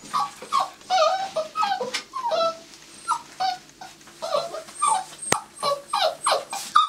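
A litter of six-week-old Labrador puppies whining and yipping for food, many short, high calls overlapping, a few each second.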